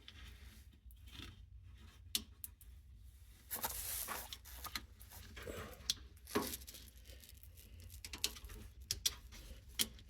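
Wires being tucked into a plastic wire loom by hand: faint crinkly rustling and small sharp clicks, with a longer rustle about four seconds in.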